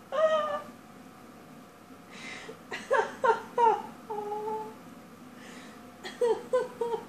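A woman giggling in short pitched bursts, with a few whimpering squeals and breathy exhales between them.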